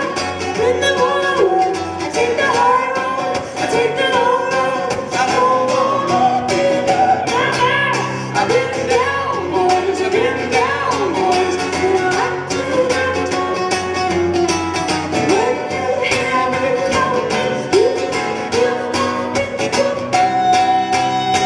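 Live music: a female singer's voice swooping up and down in a wordless melody over instrumental accompaniment, ending on a held note.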